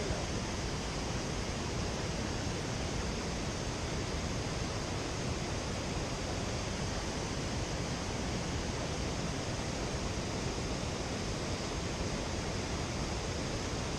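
Steady rush of water pouring over a waterfall and through the river below it, an even unbroken noise with no changes.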